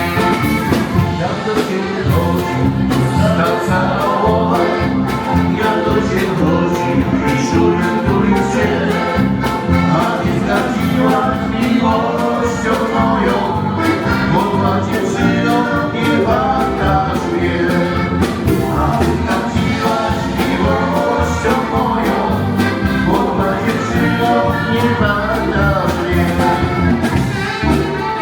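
Polish folk dance band playing a dance song, with singing over a steady beat.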